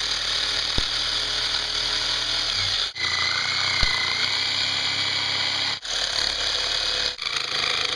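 Jigsaw running steadily as its blade cuts through a clamped 1/4-inch plexiglass (acrylic) sheet. The sound drops out briefly three times.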